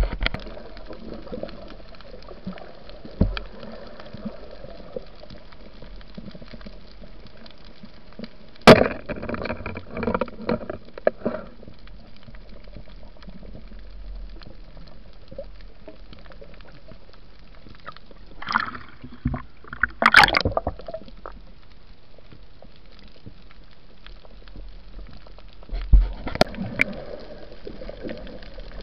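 Muffled water noise from a camera held underwater: a steady low rush, broken three times by short clusters of louder splashy, bubbling bursts.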